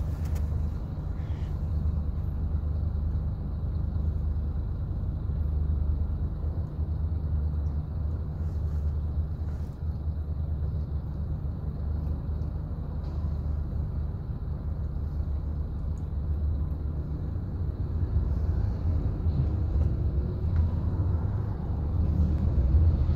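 Steady low rumble of vehicle engines in slow traffic, heard muffled from inside a car beside a fire engine. It grows louder near the end.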